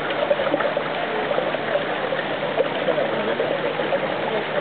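Water running and gurgling steadily as it swirls in a pool whirlpool.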